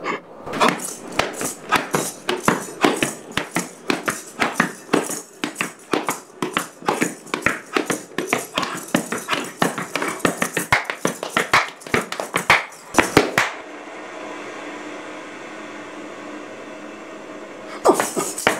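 Gumboot dance: hands slapping rubber Wellington boots and feet stamping in quick, sharp percussive patterns. The slapping stops about 13 seconds in, leaving a steady hum, and starts again just before the end.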